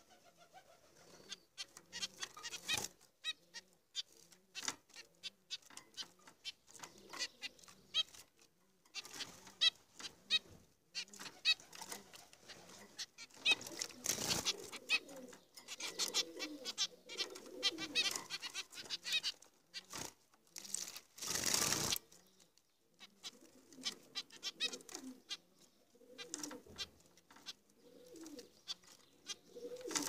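Caged zebra finches calling in quick runs of short, high chirps, with bursts of wing fluttering; the loudest burst comes a little past halfway and lasts about a second.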